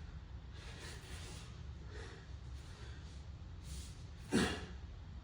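A man breathing hard while doing air squats: a few soft breaths, then a short, forceful exhale about four seconds in.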